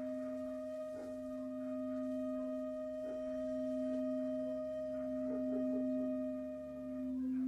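Frosted quartz crystal singing bowl rimmed with a mallet, giving one steady low tone that swells and eases, while an end-blown wooden flute holds one long higher note over it that ends about seven seconds in.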